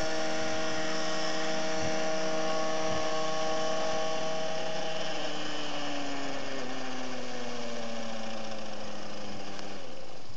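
Thunder Tiger Raptor 70 RC helicopter's nitro engine and rotor running steadily at low speed. About halfway through, the pitch begins to fall steadily as the engine and rotor wind down.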